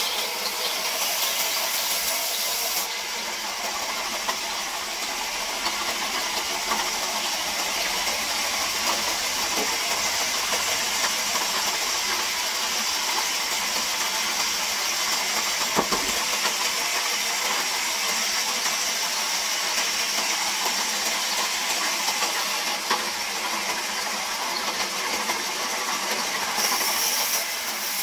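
Large vertical band saw cutting lengthwise through a thick log: a steady hissing rasp of the blade in the wood over the machine's running noise. A single sharp tick about halfway through.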